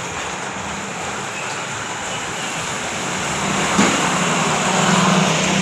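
Road traffic in the rain: a steady hiss of tyres on a wet road and falling rain, with a vehicle engine's low hum growing louder in the second half.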